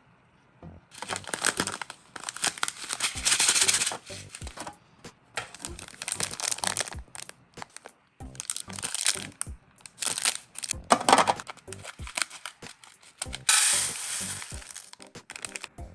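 Plastic packaging of a self-heating rice kit crinkling and tearing in irregular bursts as the packets are handled and opened.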